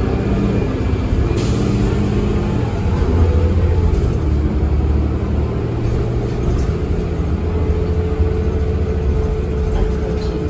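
Ride inside a 2013 Eldorado National Axess transit bus under way: the engine and drivetrain run with a steady low rumble, the pitch shifting a little as the bus changes speed.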